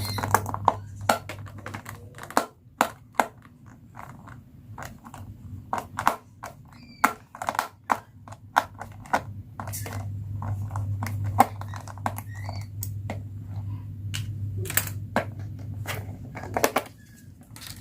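Plastic toys and packaging being handled and set down: a string of irregular sharp clicks and taps, over a low steady hum in parts.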